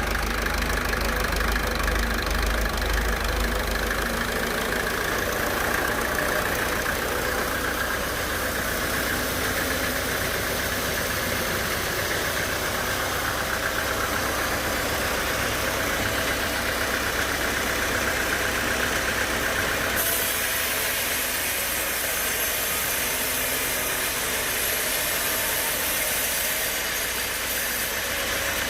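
Sawmill machinery running steadily. A deep low rumble fades about four seconds in, and the higher part of the sound shifts about twenty seconds in.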